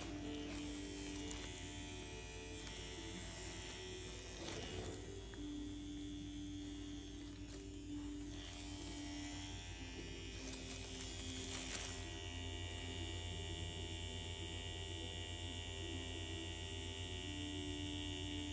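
Permanent-makeup machine buzzing steadily as it works the nano brow strokes, with soft background music. A brief knock about four and a half seconds in.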